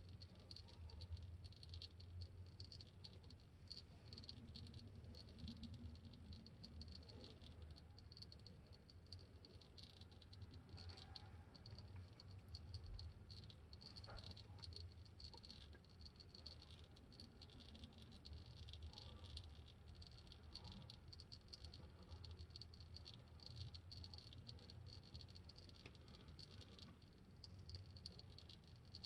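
Faint, irregular pattering of used engine oil dripping from the oil-pan drain hole of a 2006 Dodge Durango's 4.7-litre V8 into a drain pan, the flow slowed to a drip, over a low steady hum.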